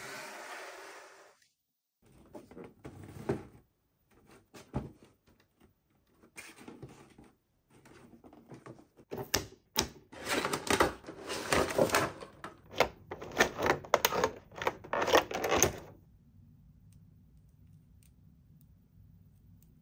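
Toy packaging and a toy being handled during an unboxing: a short noisy sound at the start, then a run of clicks, taps and rustles that grows busier and louder from about eight seconds in and stops suddenly a few seconds before the end, leaving a faint low hum.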